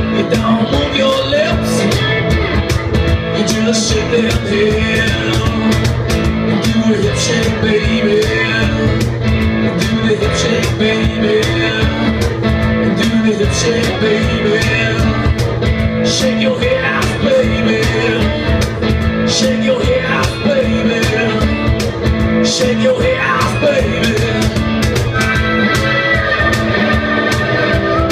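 Live band playing blues-rock with electric guitar over a steady beat.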